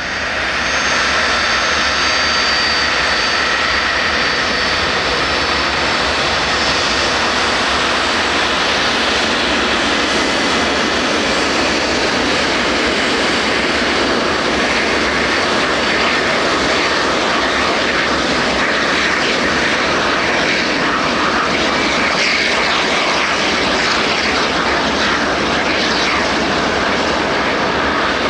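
Fixed-wing aircraft engines running loud and steady, with thin high whining tones over the first several seconds that then fade into the general roar.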